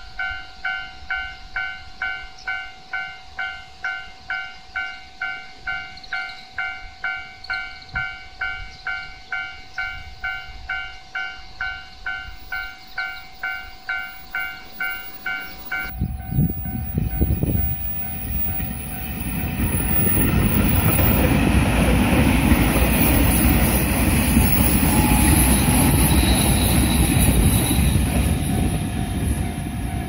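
Japanese level-crossing warning bell ringing about twice a second. About sixteen seconds in it gives way to a JR Shikoku 8000 series electric limited express (the Anpanman train) approaching and passing, a rumbling rail noise that grows loud and stays loud.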